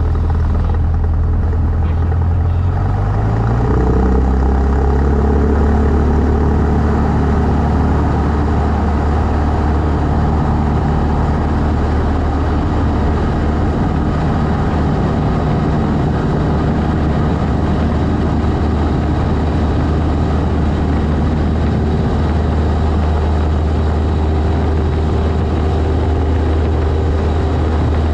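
Cessna 152's four-cylinder Lycoming engine and propeller running, its pitch rising over a couple of seconds near the start as power comes up, then holding a steady drone.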